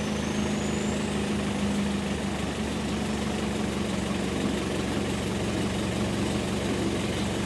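Backhoe engine running at a steady idle.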